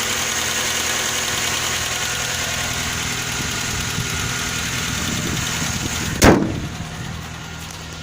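Suzuki Grand Vitara's J20A 2.0-litre four-cylinder engine idling, with the knock that appeared after its timing chain was replaced, which a service shop calls normal. About six seconds in comes a single loud thump, after which the engine sounds quieter and duller.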